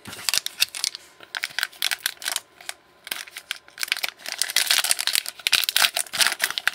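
Trading cards being handled and flipped through by hand: quick, irregular clicks and rustles of card stock and pack wrapper, denser in the second half.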